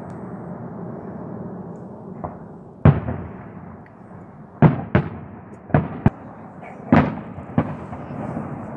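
Aerial firework shells bursting: a run of about seven sharp bangs from about three seconds in, each trailing off in an echoing rumble, with a low rumble in the first couple of seconds.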